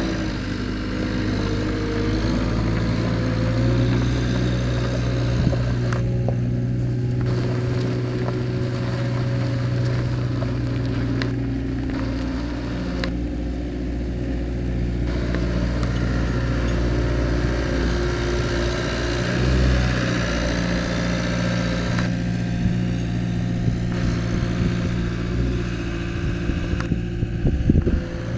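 Caterpillar 262C skid steer's diesel engine running steadily, its engine speed shifting a few times as the machine is worked, with a few sharp knocks and clanks, most of them near the end.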